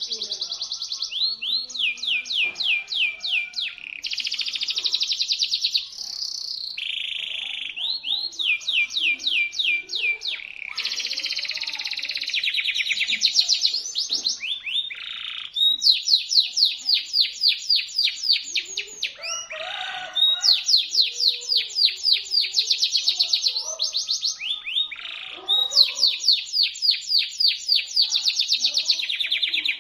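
Domestic canary singing in a continuous, shrill song. Fast trills of many repeated sliding notes alternate with buzzing rolls, broken by brief pauses.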